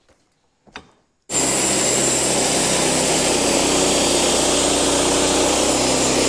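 Wood-Mizer LX50 portable bandsaw sawmill cutting through a cherry cant. The mill starts suddenly about a second in, then runs steadily, with the band blade's noise in the wood carrying a thin high whine.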